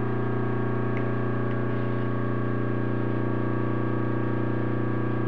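Steady electrical hum of machine-shop equipment at the lathe: an even, buzzing drone with a strong low mains hum and many steady overtones, with two faint ticks about a second in.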